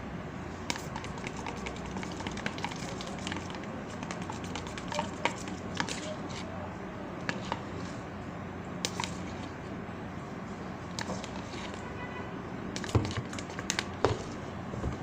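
Sticky homemade styrofoam-glue slime being mixed and worked, with irregular small clicks and wet smacks, a few louder knocks near the end.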